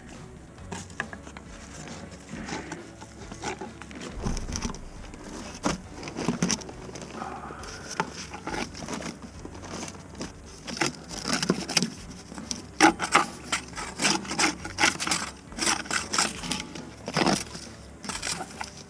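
A drain-cleaning cable working through a kitchen drain line clogged solid with disposal waste: irregular knocking, rattling and scraping against the pipe over a low steady hum, busier and louder in the second half.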